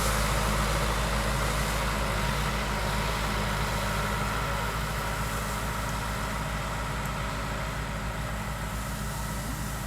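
Diesel engine of heavy earth-moving equipment running steadily with a low hum, slowly growing fainter.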